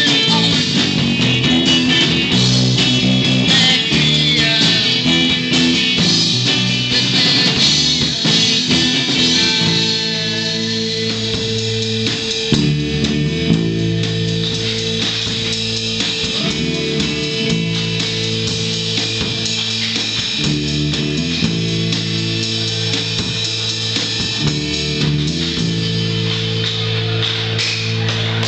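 Live rock band playing: electric guitars over a drum kit, recorded close on a small venue's floor. The playing eases off a little about ten seconds in.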